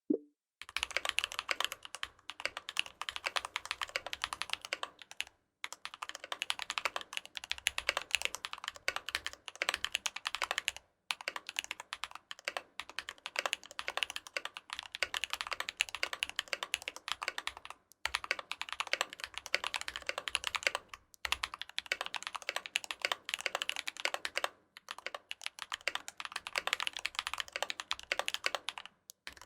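Fast, continuous typing on a KBD75 v3.1 custom mechanical keyboard with tactile Holy Panda switches lubed with 205g0: a dense run of key clicks and clacks, broken by short pauses about every few seconds.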